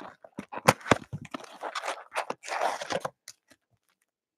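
Cardboard Panini Prizm retail card box being torn open along its perforated tab: a few sharp clicks, then about a second and a half of ripping and scraping cardboard.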